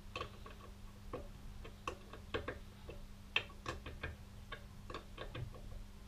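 Ratchet clicking in short, irregular runs as a motorcycle fork leg's drain plug is wound in and snugged down onto its copper sealing washer.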